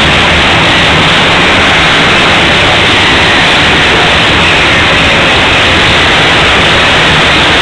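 Racing quad ATV engines filling an indoor stadium, heard as a steady, very loud, hissing din with no breaks.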